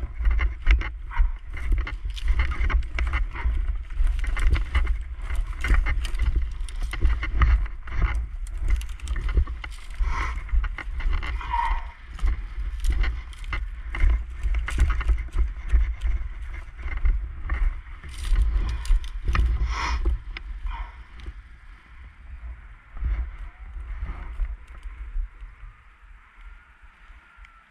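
Footsteps crunching and rustling through dry, burnt grass, with wind rumbling on the microphone. Near the end a distant siren wails faintly.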